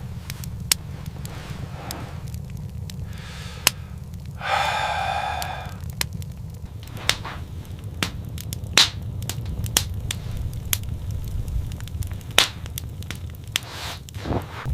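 Fire crackling and popping in irregular sharp clicks over a steady low rumble, with a short pitched whine lasting about a second and a half, about four and a half seconds in.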